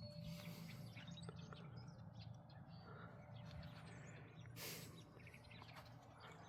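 Faint outdoor ambience: scattered small bird chirps over a low steady hum, with one brief rush of noise about two-thirds of the way through.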